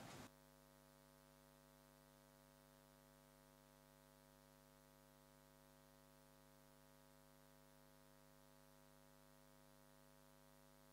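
Near silence: a faint room sound cuts off a fraction of a second in, leaving only a faint, steady electrical hum.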